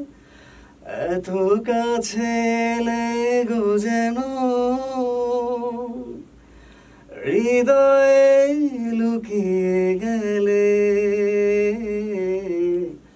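A man singing two long, held phrases of a Bengali film song into a studio microphone, the notes wavering with vibrato, with a short breath between the phrases about six seconds in. No accompaniment is heard.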